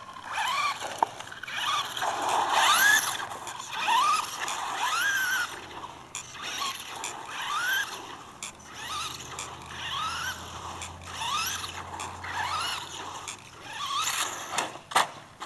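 Electric motor of a Traxxas RC car whining in short bursts, its pitch rising with each burst of throttle, about once a second.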